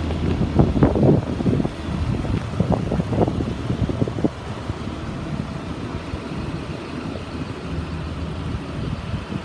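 2004 Blue Bird school bus engine idling steadily, with some louder irregular noise over it in the first few seconds.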